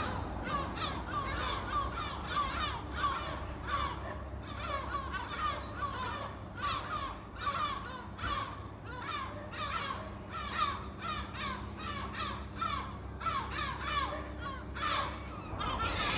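A flock of gulls squawking: many short, harsh calls overlapping, a few each second, over a low steady rumble.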